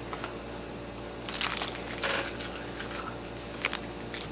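Clear plastic figure packaging crinkling and crunching as it is handled, in a few short bursts about a second and a half, two, and three and a half seconds in.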